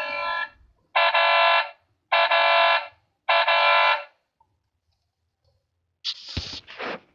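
Battery-powered Hess toy truck's electronic sound effect: three identical buzzy horn-like tones, each about two-thirds of a second long with short gaps between them. Near the end comes a short knock and clatter.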